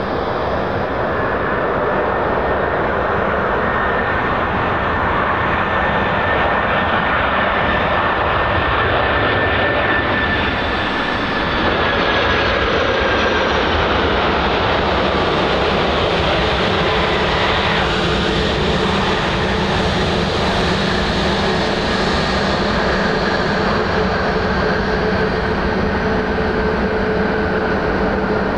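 Boeing 747-400 freighter's four jet engines during landing: a loud, steady jet noise with a high whine that slowly falls in pitch, running on through touchdown and rollout.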